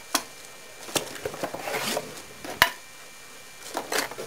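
Hard plastic and metal parts of a solar garden stake light clacking as they are handled and set down on a table: a few separate sharp knocks, the loudest a little past halfway, with light rustling in between.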